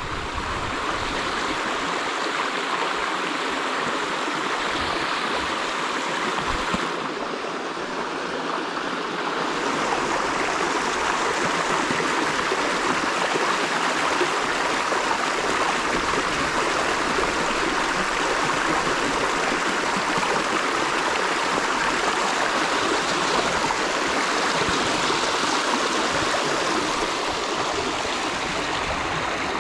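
A small creek running shallow over flat bedrock and stones: a steady, even rush of moving water.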